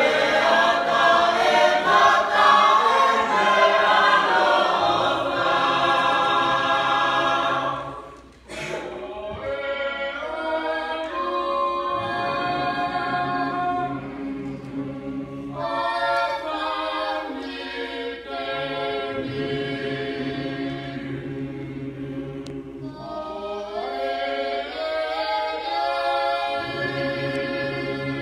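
Youth choir singing a Tongan hiva usu hymn unaccompanied, many voices in parts. The singing breaks off briefly about eight seconds in, then carries on a little quieter in phrases.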